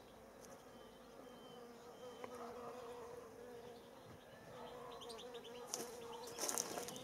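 A buzzing insect, a faint steady hum that wavers slightly in pitch, starting about two seconds in.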